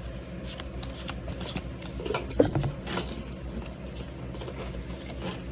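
Foil booster pack and trading cards being handled: irregular crinkling and light clicks, a little louder about two to three seconds in, over a steady low hum.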